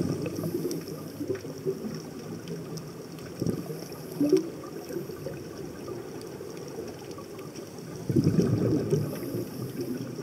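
Scuba diver's exhaled air bubbling out of the regulator underwater, a low gurgling that swells in surges, with a long burst near the end and shorter ones around the middle. Faint scattered clicks sound through it.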